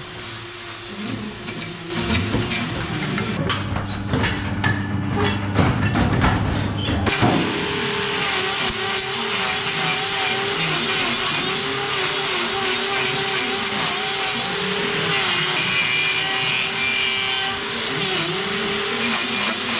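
An angle grinder cutting a cow's hoof: about seven seconds in it starts with a sudden jump in loudness and then runs steadily, its whine dipping in pitch a few times as it bites into the hoof. Before that there is a lower, clattering mix of sounds.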